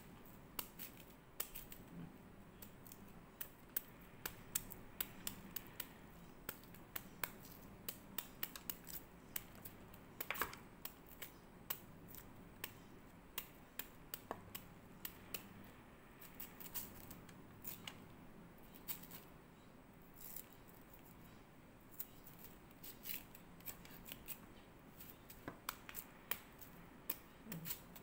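Kitchen knife shaving thin slivers off a raw bamboo shoot held in the hand: a steady run of short, crisp cutting clicks, irregular, a few a second.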